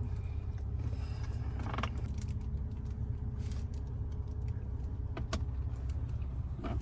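Steady low drone of a car with its engine running, heard from inside the cabin, with a few soft rustles and taps about two and five seconds in.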